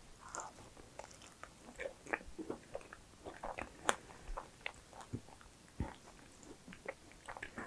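Close-miked mouth sounds of chewing a macaron: soft, irregular sticky clicks and small smacks, with no crunch to speak of.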